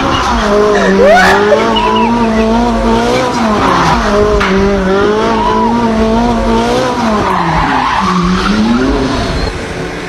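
Car engine held at high revs with tyres squealing, the sound of a drift or burnout. The engine note dips and climbs back up shortly before the end.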